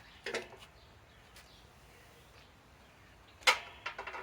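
Two brief knocks: a small one just after the start, then a louder metallic clank with a short ring about three and a half seconds in, followed by a few light ticks.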